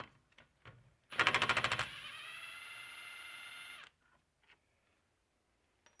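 Milwaukee Fuel cordless impact wrench hammering a brake caliper bolt loose in a rapid burst of just under a second. It then spins freely with a steady whine for about two seconds as the bolt runs out, and stops abruptly.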